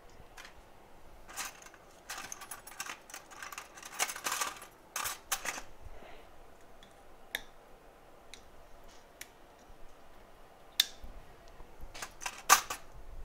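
Small metal hand tools clicking and scratching on a workbench during phone logic-board work. A dense run of scratchy clicks comes in the first few seconds, then scattered single ticks, and a few sharper clicks near the end.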